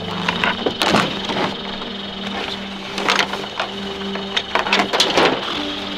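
Rustling and thuds of a heavy canvas rucksack being handled and loaded, over background music with long held notes.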